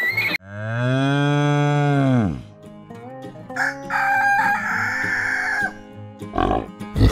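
A long, low call from a farm animal that sags in pitch as it ends, then a rooster crowing for about two seconds, then a few short, loud pig grunts near the end.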